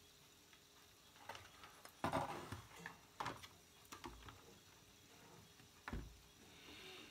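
Scattered light clicks and knocks of hands handling a CRT television's circuit board and wiring, the loudest about two seconds in.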